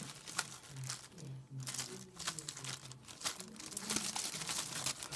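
Clear plastic packaging bag crinkling as it is handled and unwrapped from around a soldering iron stand, in irregular crackles.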